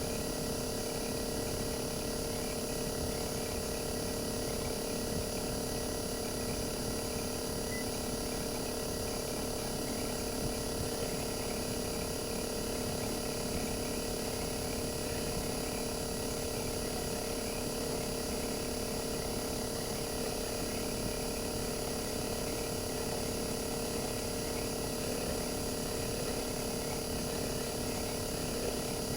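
RECHI 43W26SH single-rotary inverter compressor of a Sharp AU-J25XY air-conditioner outdoor unit running steadily, heard raw with the unit taken apart: an even hum with several steady whining tones, unchanging throughout.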